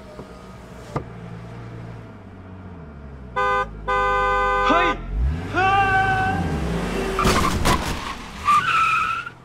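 Radio-drama sound effects of a car running a garland-selling boy down: the engine runs and revs, the horn blasts once briefly and then longer, tyres screech, and a crash comes about three-quarters of the way through.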